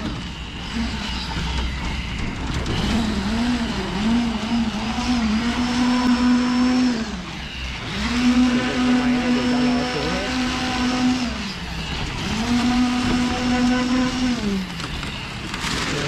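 Motor of the concrete-pouring machinery speeding up to a steady hum, holding it for two to four seconds, then winding down. This happens three times, after a wavering run in the first few seconds.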